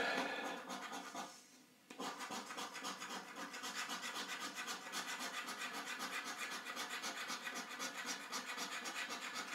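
A coin scratching the coating off a paper scratch card in quick, steady back-and-forth strokes, starting about two seconds in.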